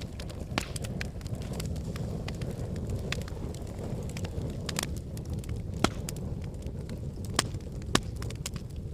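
Wood fire burning in a fireplace: a steady low rumble of flames with frequent sharp crackles and a few louder pops in the second half.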